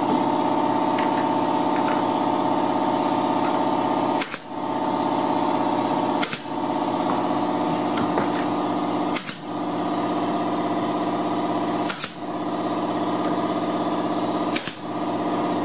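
Nail gun firing five single shots a few seconds apart, fastening a wooden door stop to the latch-side jamb, over a steady machine hum.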